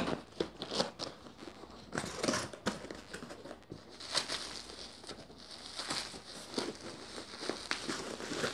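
Corrugated cardboard box flaps being pulled open and handled, with the bubble wrap packing inside crinkling as it is touched. The sound is irregular scraping and crackling, with a sharp click at the start.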